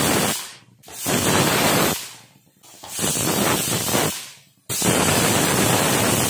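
Stovetop pressure cooker whistling: its weight lifts and steam hisses out in loud bursts of a second or two with short quiet gaps, one ending about half a second in and three more after it. These are the whistles counted to time the chana dal and bottle gourd cooking under pressure.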